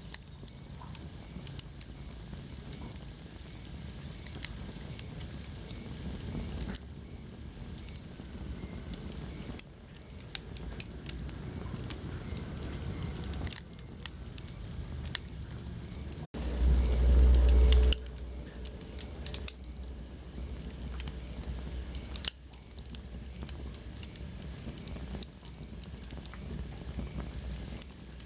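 Wood fire crackling: a steady hiss with frequent small sharp pops. Just past the middle the sound cuts out for an instant, then a loud low rumble lasts about a second and a half.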